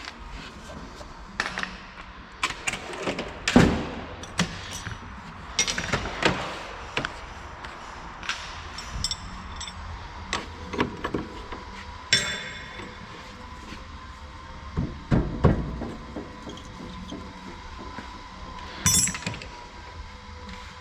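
Hand tools working on a car in a workshop: a long run of irregular metallic knocks, clinks and clanks, a few of them sharp and loud, like hammer blows and tools being set down.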